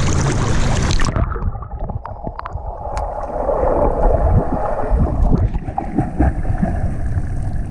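Water splashing as a swimmer kicks and pulls with one arm while holding a foam kickboard. About a second in, the sound turns muffled as the microphone goes underwater, with bubbling from his breath blown out underwater, and surface splashing comes back near the end.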